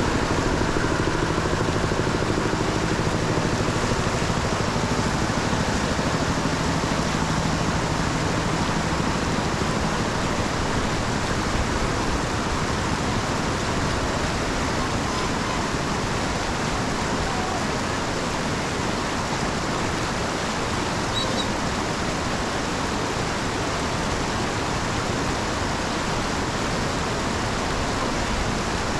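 Steady rushing noise of heavy rain and storm water pouring into a street drain. A faint low hum fades out during the first ten seconds or so.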